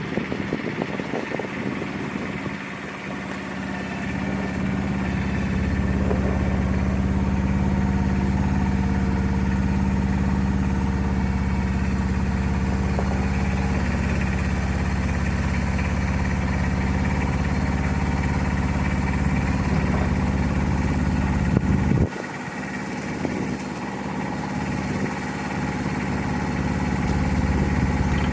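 A small engine runs steadily at low speed. Its low hum drops suddenly about three-quarters of the way through, then builds back up near the end.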